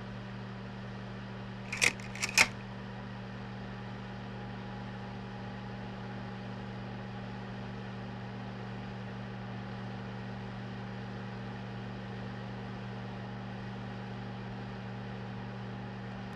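Projector running with a steady electrical hum and fan hiss, with two sharp mechanical clicks about two seconds in as the slide advances to the next card.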